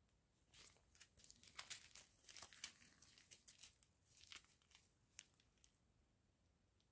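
Small zip-lock plastic bags of round diamond painting drills handled and crinkled in the fingers, faint, in quick irregular crackles that die away near the end.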